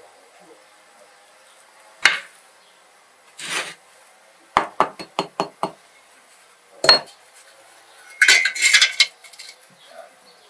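Bricklaying sounds: sharp knocks and a quick run of about six taps of a hammer on fireclay brick as it is set in place on the firebox wall. Near the end, a short clinking clatter of metal hand tools being handled.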